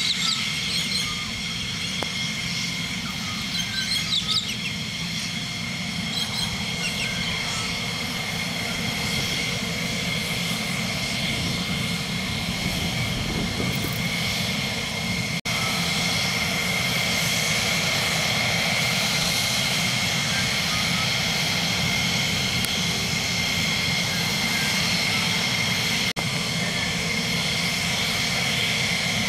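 F-16D fighter jet engine running at taxi power: a steady high-pitched turbine whine over a low rumble, with two momentary drop-outs.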